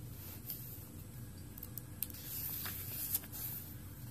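Paper pages of a handmade journal being turned and handled: soft rustles and a few light taps over a faint steady low hum.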